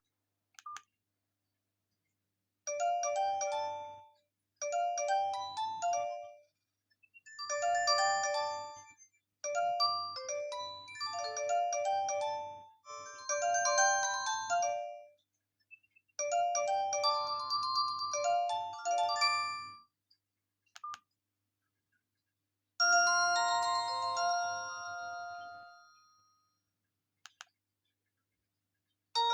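Alcatel 232 mobile phone playing its built-in ringtones: a bright electronic melody in short repeated phrases of several notes at once, which stops about 20 seconds in. About 23 seconds in another phrase starts and dies away, with short blips in the silent gaps.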